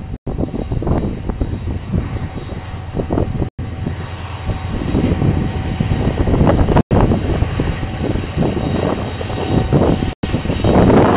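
A passing KiwiRail train: a heavy, continuous rumble that swells and fades unevenly and grows louder near the end. The sound cuts out briefly about every three seconds.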